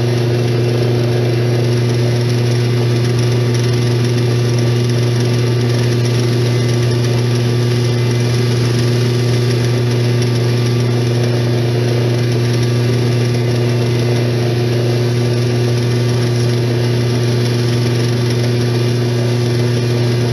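Small metal lathe running at a steady speed with an even hum, spinning an antique sewing machine handwheel while oiled suede leather is pressed against it to burnish the metal.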